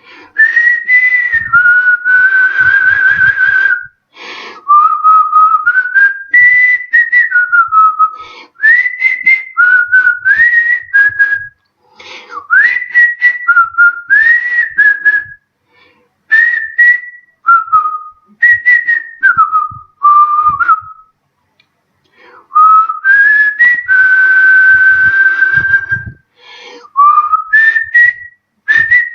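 A man whistling a melody through pursed lips: a single clear tone sliding between notes in short phrases with brief pauses, over an airy breath hiss. Near the end he holds one long steady note.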